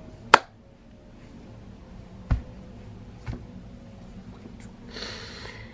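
A sharp click, then two soft low thumps about a second apart, then a breathy exhale near the end.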